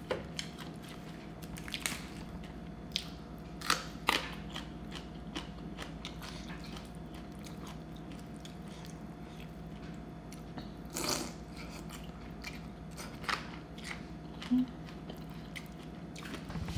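Close-up eating sounds: chewing with a handful of sharp crunches of crisp food, over a faint steady hum.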